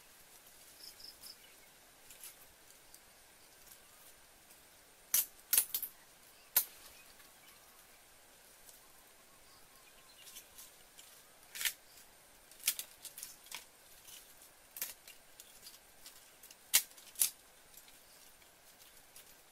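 Sharp, irregular snaps and clicks from a small twig fire being tended by hand, about ten loud ones scattered over a faint steady outdoor hiss.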